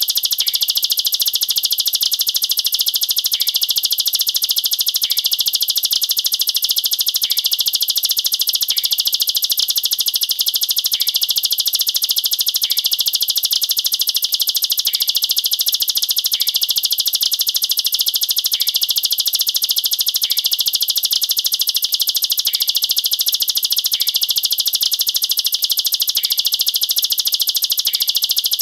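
Ciblek sawah (a prinia) singing its rapid-fire 'nembak rapat' song: a continuous, high-pitched run of very fast notes, steady in level and without pauses.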